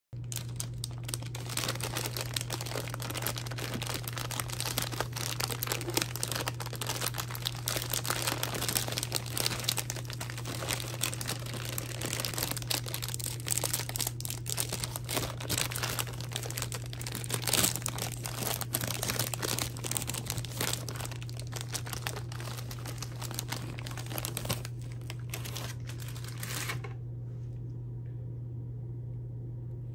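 Plastic candy bags and wrappers crinkling as they are handled and opened, a dense crackle that stops about three seconds before the end. A steady low hum runs underneath.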